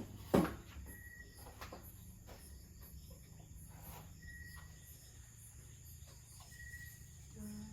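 A sharp knock just after the start. After it, faint insect chirps come back every couple of seconds over a low steady background hum.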